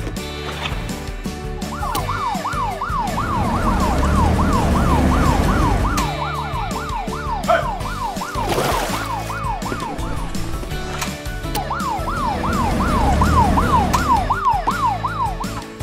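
BRIO Police Boat's electronic toy siren sounding in two bursts of a few seconds each, a fast up-and-down wail of about five sweeps a second; the first starts about two seconds in, the second about twelve seconds in and stops just before the end.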